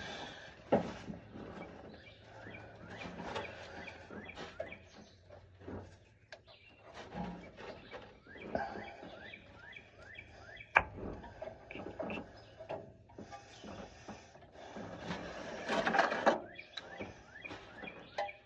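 Scattered light clicks and knocks of hand tools working on an engine, with one sharper click near the middle.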